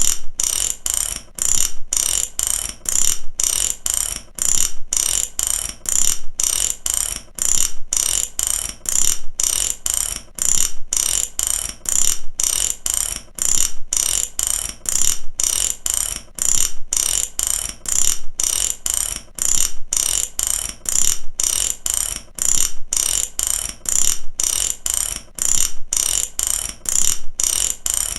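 Mechanic's socket ratchet wrench being worked back and forth, each stroke a quick run of pawl clicks, a little under two strokes a second, steady and unbroken.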